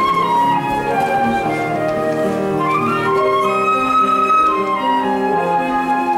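Live instrumental chamber music: strings and piano playing a slow melody of held notes over sustained lower parts.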